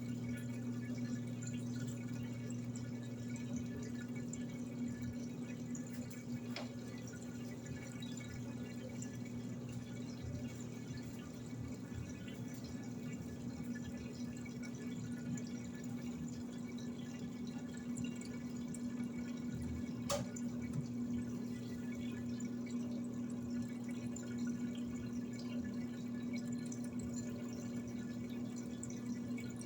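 Electrolux LED14 top-loading washing machine with water running in its tub over a steady low electric hum. A brief click about twenty seconds in.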